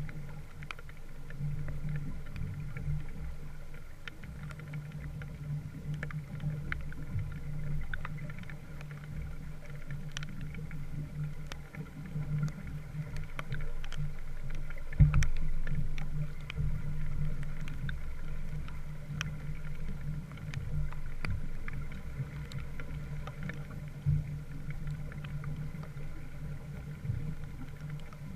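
Small wooden sailboat under way, with a steady low hum, scattered light ticks, and one thump about halfway through.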